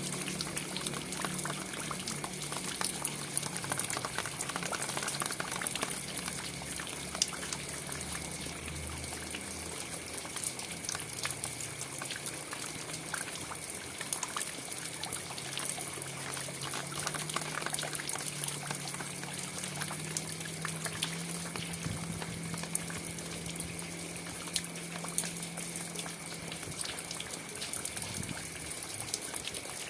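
Rain falling steadily, with many sharp ticks of single drops scattered through it.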